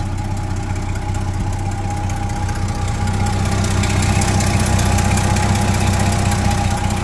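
Old Chevrolet pickup truck's engine idling with an even low pulse, getting a little louder about halfway through.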